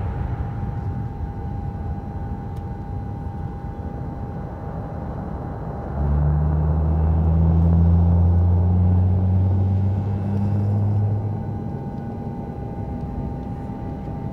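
Low, steady rumble of jet airliner engines with a faint high whine. A deep hum swells in suddenly about six seconds in and fades out a few seconds later.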